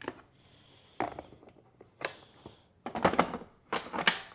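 Hard plastic knocks and clicks as the Ninja Creami pint is set back into its outer bowl and locked into the machine, a series of short clunks with the loudest cluster near the end.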